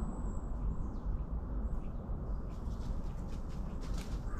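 Outdoor woodland ambience: a steady low rumble of wind on the microphone, with faint bird chirps from about halfway through.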